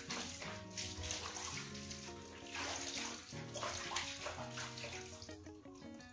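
Water splashing and sloshing in a plastic basin as a cat is washed by hand, in repeated scoops and splashes. Background music plays throughout.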